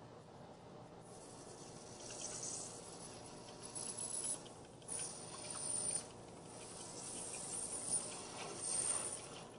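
Lathe tool taking a light cut into a thin aluminium disc: a hissing cutting noise that starts about a second in and rises and falls, with brief high squeals about halfway through and near the end.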